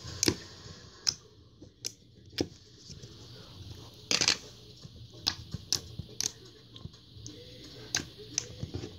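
Jiggly slime poked and squeezed with fingers and tipped out of its plastic tub, giving about ten scattered clicks and small pops, the loudest and longest about four seconds in.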